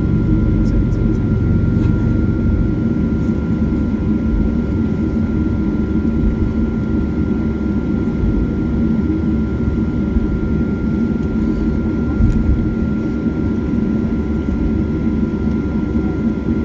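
Cabin noise inside a Boeing 737-800 taxiing: its CFM56-7B jet engines are running at idle as a steady low drone, with a few thin steady whining tones above it.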